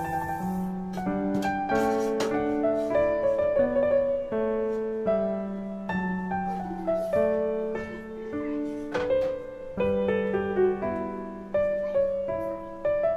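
Piano music: a melody of changing held notes over a lower line.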